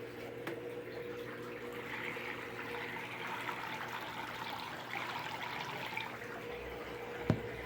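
Electrolux LTD06 washing machine draining: water runs out steadily over the even hum of the drain pump. A single short click comes near the end.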